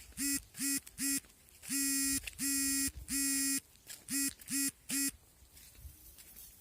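A reedy squeaker honks nine times at one steady pitch in an SOS rhythm: three short, three long, three short.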